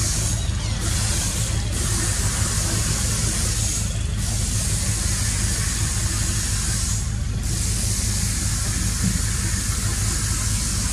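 Steady background noise: a continuous low rumble with a high hiss over it, which cuts out briefly about four times.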